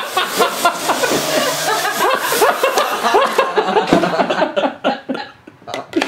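Several people laughing and chuckling over the high, steady whir of a Parrot AR.Drone quadcopter's four propellers. The whir dies away a little over three seconds in, and a single knock follows just before four seconds.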